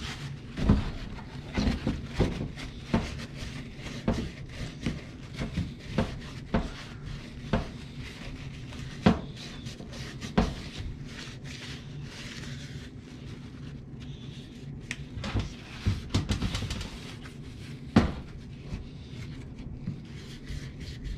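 Black plastic washing-machine drain-pump housing handled and knocked against a bench while being wiped out with paper towel: scattered sharp clicks and knocks, with rubbing and rustling of the paper towel, over a steady low hum.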